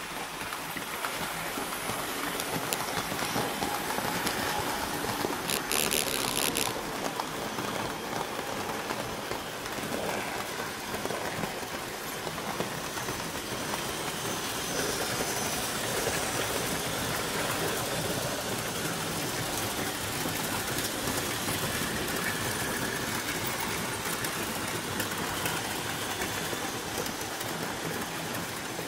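Model trains running on a layout: a steady rolling clatter of small wheels on track with motor noise. A brief high hiss about six seconds in.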